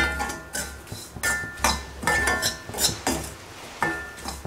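Steel spoon stirring semolina as it roasts in oil and ghee in an iron kadai, knocking and scraping against the pan about twice a second, each knock with a short metallic ring.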